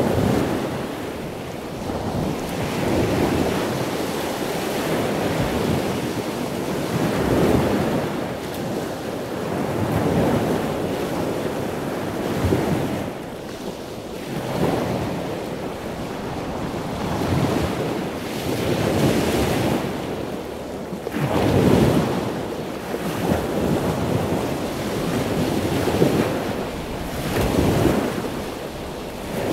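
Ocean surf: waves breaking and washing in one after another, swelling and falling every few seconds.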